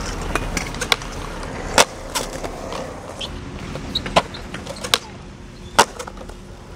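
Skateboard wheels rolling on pavement with a steady low rumble, broken by several sharp clacks of the board. The three loudest come about two seconds in, about four seconds in and near the end.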